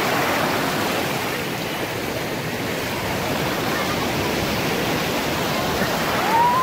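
Small surf waves breaking and washing up over sand at the shoreline, a steady rush of water, with a brief rising cry near the end.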